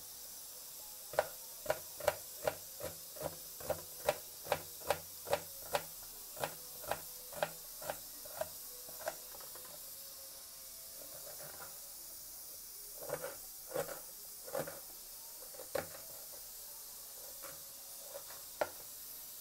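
Kitchen knife chopping a red onion on a plastic cutting board. A run of sharp taps comes about two a second for the first nine seconds or so, then a few scattered taps.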